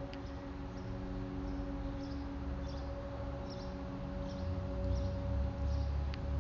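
Insects chirping in an even rhythm, about one chirp every 0.7 seconds, over a steady hum of several held low tones and a rumble that grows louder near the end, with a faint click near the start and another near the end.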